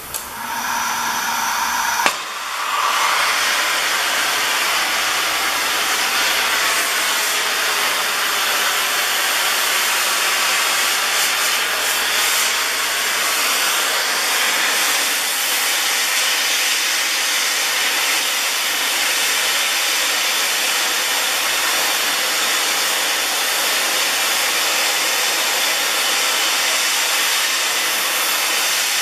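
Robot-held oxy-fuel cutting torch: a sharp pop about two seconds in as it lights, then a steady, loud hiss of the flame and gas jet as it heats and starts bevelling a 50 mm steel plate.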